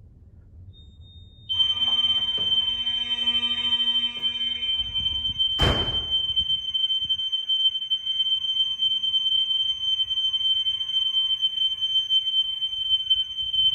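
Vintage FCI mechanical fire alarm horns go off about a second and a half in and sound continuously: a steady high-pitched tone over a buzzing stack of lower notes. A single sharp knock comes about six seconds in.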